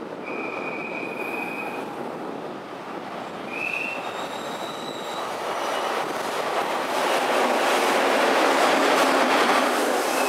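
JR West 227 series electric multiple unit pulling out of a station, its running noise building and growing louder as it gets under way. A few short high tones sound in the first few seconds.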